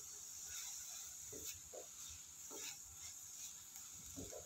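A wooden spatula stirs and scrapes chopped onions and ginger around a dry iron kadhai, dry-roasting them with no oil, in a few faint irregular strokes over a steady hiss.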